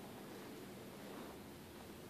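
Faint room tone in an empty room: a steady low hiss with a faint hum, and no distinct event.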